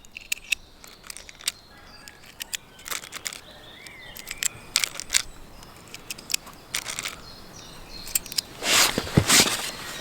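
Scattered sharp clicks and knocks of handling, with a louder burst of rustling and clicks near the end. Birds chirp faintly in the background.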